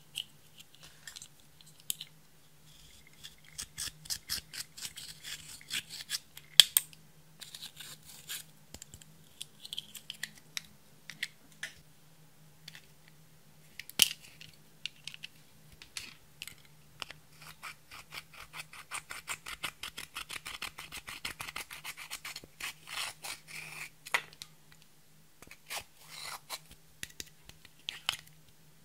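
Powder eyeshadow compacts handled close to the microphone: plastic cases clicking, with two sharp snaps, and the eyeshadow scratched and crushed with a pointed tool in a dense run of quick fine scratches a little past the middle.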